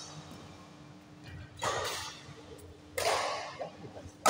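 Badminton rally: rackets striking the shuttlecock twice, about a second and a half apart, each hit echoing briefly in the hall.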